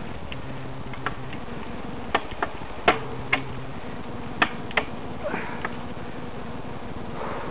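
Mountain bike descending a rough dirt trail, heard from a helmet camera: a steady rush of tyre and wind noise with a string of sharp knocks and rattles as the bike jolts over bumps. The knocks cluster between about two and five seconds in, the loudest about three seconds in.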